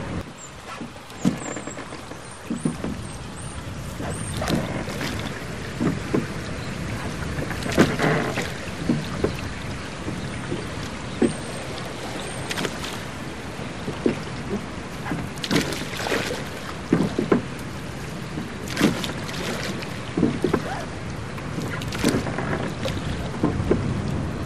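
Water slapping and splashing against a small boat on choppy river water, in irregular splashes every second or so over a constant wash of water and wind.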